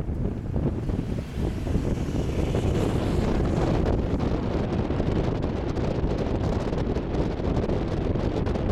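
Wind buffeting the microphone: a steady rushing noise that grows louder about two to three seconds in.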